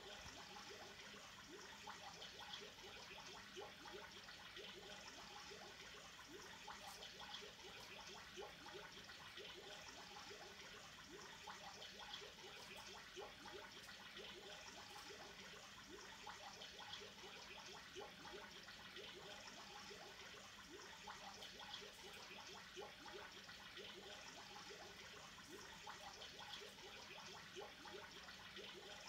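Faint, steady trickle of aquarium water with many small bubbling gurgles.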